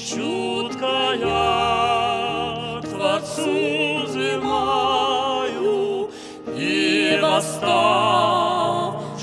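Music with singing: voices with a wide vibrato singing sustained phrases over held accompanying chords, with short breaks between phrases.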